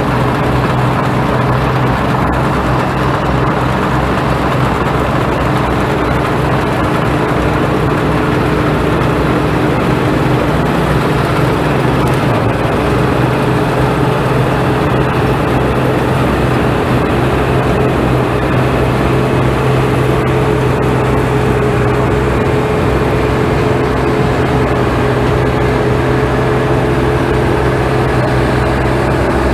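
Farm machine engine running steadily at constant speed, a loud, unbroken mechanical drone.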